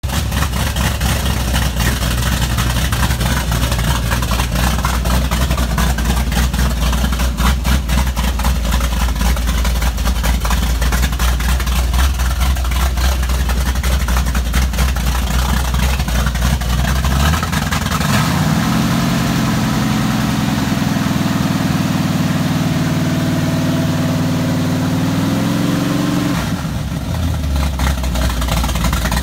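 Freshly rebuilt small-block Chevrolet V8 in a 1979 Camaro Z28, heard on its first run after the rebuild. It idles steadily with an even, pulsing beat, is brought up to a higher speed about 17 seconds in, holds there for about eight seconds, then drops back to idle.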